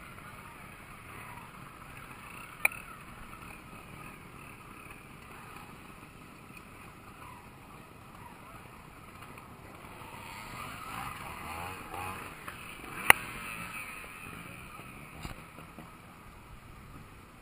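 Trial motorcycle engine revving, its pitch rising and falling, growing louder about ten seconds in. Two sharp knocks stand out, one early on and a louder one about thirteen seconds in.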